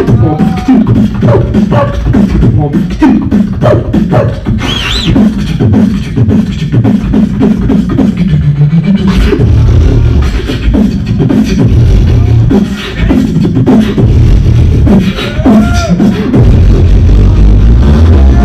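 Human beatboxing into a handheld microphone through a club PA: a fast run of kick, snare and click sounds over heavy mouth bass. Pitched vocal sweeps come in twice, a high rising one about five seconds in and another near the end.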